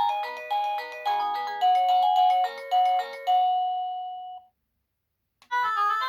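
EMASTIFF wireless doorbell chime playing a polyphonic electronic ringtone melody of quick, decaying notes. The tune ends about four and a half seconds in, and after a short pause a different ringtone starts near the end.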